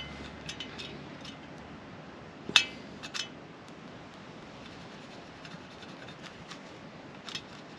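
A few light clicks and taps from hand tools being handled while measuring and marking. The sharpest is a single metallic tick about two and a half seconds in.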